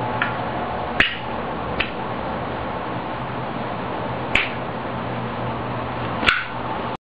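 Zippo lighter clicking during a flip trick: five sharp metallic clicks, unevenly spaced, with the three at about one, four and six seconds in the loudest, over a steady background hiss and hum. The sound cuts off abruptly just before the end.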